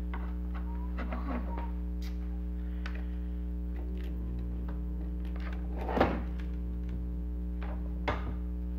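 Small clicks and knocks of tools and parts being handled on a workbench while soldering, with a louder thump about six seconds in and a smaller one about two seconds later, over a steady low electrical hum.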